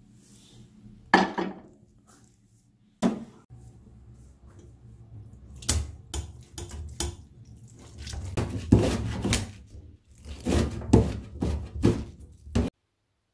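Kitchen clatter: a single clunk about a second in, then a spoon scraping and knocking against a stainless-steel mesh sieve over a steel pot as tofu is mashed through it, then a knife chopping green onions on a cutting board in quick strikes that cut off suddenly near the end.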